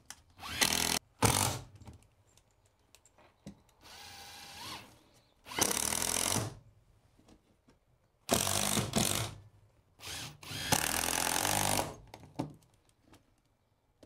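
Cordless drill driver driving screws into a plywood subfloor patch around a toilet flange. It runs in about six short bursts, each lasting up to a second or so, with pauses between them.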